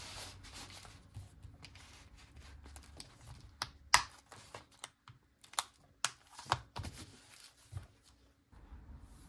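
A leather wallet being handled: soft rustling and rubbing of leather, then a string of about half a dozen sharp clicks and taps, the loudest about four seconds in.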